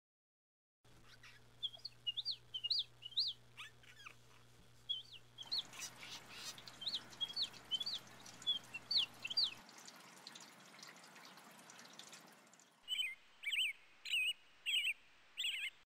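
Birds chirping in a string of short, quick calls over a faint outdoor hiss, starting about a second in. Near the end a different, louder run of about five calls comes in.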